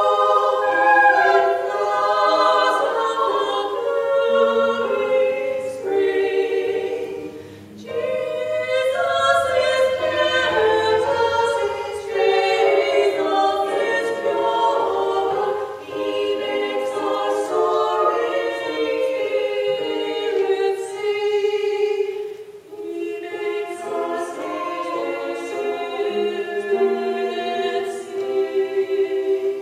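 Mixed choir of women's and men's voices singing in several parts, in sustained phrases with a short breath about seven or eight seconds in.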